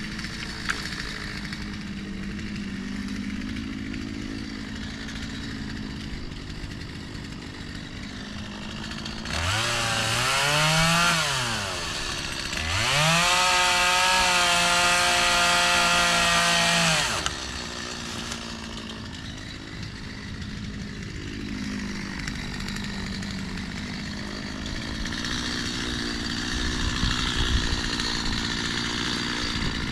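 Two-stroke chainsaw idling, revved up to full speed twice in the middle: briefly at first, then held for about four seconds before dropping back to idle.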